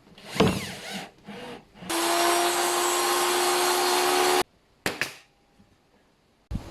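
A power drill boring into wood, running at a steady speed for about two and a half seconds before cutting off abruptly, after a brief swish and some light scraping.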